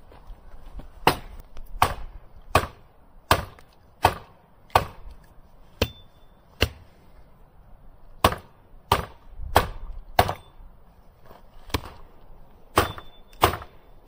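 Firewood being chopped by hand with a bladed tool: about fourteen sharp strikes on wood, roughly one every 0.7 s, in three runs with short pauses between, a few leaving a faint metallic ring. The tool is not cutting through the wood well.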